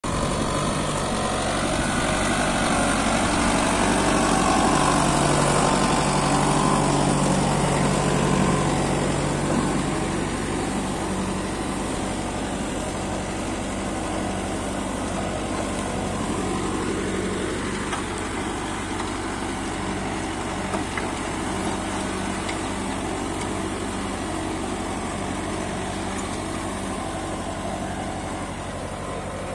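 Kubota MU5502 tractor's four-cylinder diesel engine running steadily, a little louder over the first ten seconds or so and then easing off slightly.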